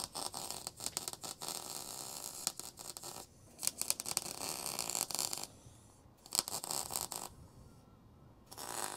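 Electric arc welding on a steel boat's tow rail, filling small rusted-through screw holes. The arc crackles in about four runs, each one to three seconds long, with short breaks between them. In this section the weld sounds terrible to the welder.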